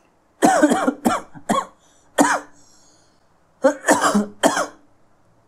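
A man coughing close to the microphone in two short fits, about four coughs and then, after a pause, about three more.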